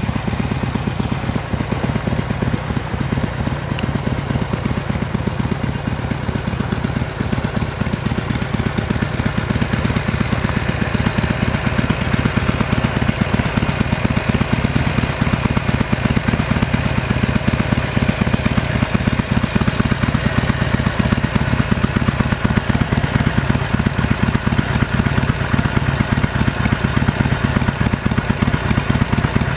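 Harley-Davidson Sportster 1200's air-cooled V-twin engine idling steadily, getting a little louder about ten seconds in.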